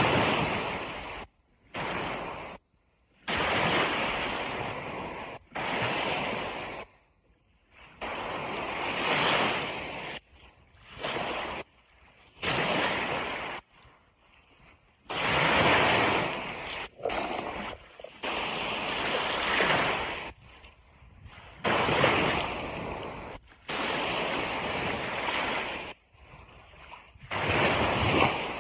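Ocean surf washing onto a beach in repeated surges, each a second or a few long, with the sound cutting off abruptly into near silence between many of them.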